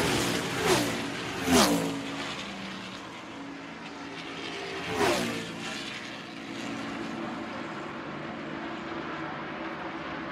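NASCAR V8 stock cars racing past at speed, each engine note dropping in pitch as it passes: three loud pass-bys in the first five seconds, then a steadier drone of cars further around the track, with a crowd in the background.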